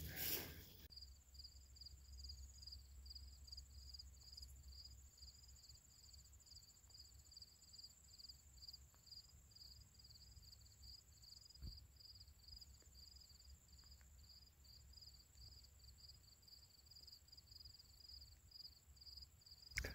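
Faint insects chirping in open grassland, near silence otherwise: a steady high buzz alongside a regular pulsing chirp that repeats a few times a second, starting about a second in.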